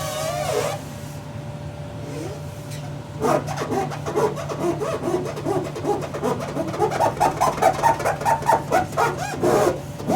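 A quick run of short, squeaky rubbing strokes, several a second, starting about three seconds in and stopping near the end, over a low steady hum.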